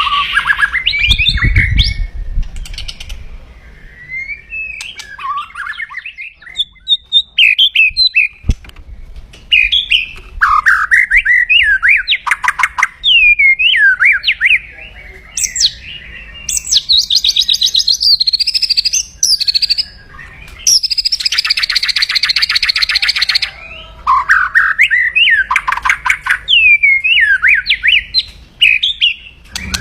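White-rumped shama singing an aggressive song: loud phrases of quick rising and falling whistles, broken twice by long harsh rattling 'kretek' stretches, about sixteen and twenty-one seconds in. A low thump comes about a second in.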